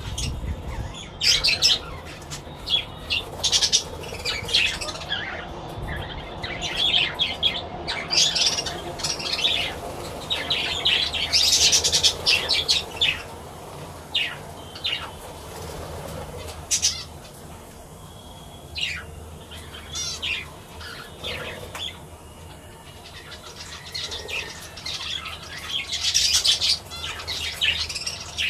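Budgerigars chirping and chattering, a stream of short high calls, some coming in quick clusters.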